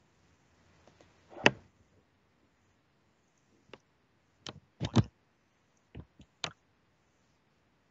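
A scattered series of sharp clicks and knocks, about eight in all. The loudest come about a second and a half in and again around five seconds in, with a cluster of smaller ones in between and after.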